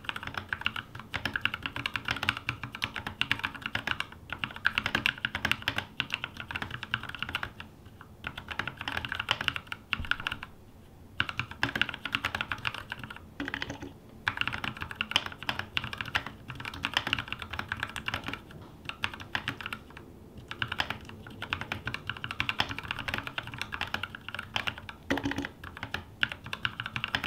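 Fast, continuous typing on a custom 60% mechanical keyboard with NovelKeys x Kailh Cream linear switches, an aluminium plate and a bamboo case: a steady stream of key clacks with a few short pauses.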